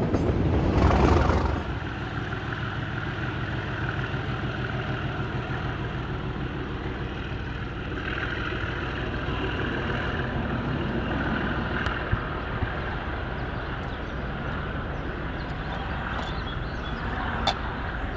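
A Class 37 diesel locomotive passing close by for the first second and a half, then a sudden drop to the steady drone of a Class 37's English Electric diesel engine, running as the locomotive approaches. A single sharp click near the end.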